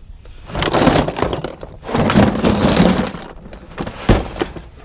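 Metal tools and scrap clattering and rattling as they are handled, in two long stretches, with a single sharp knock about four seconds in.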